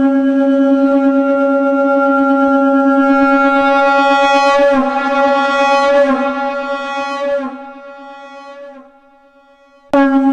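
Shankh (conch shell) blast at C#, sampled and triggered on a sampler pad: one long steady note, wavering slightly in the middle, then fading out after about eight seconds. A second blast starts abruptly near the end.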